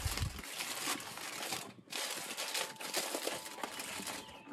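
Aluminium foil crinkling and crackling as it is folded and pressed by hand around a piece of meat, with a brief pause a little before two seconds in.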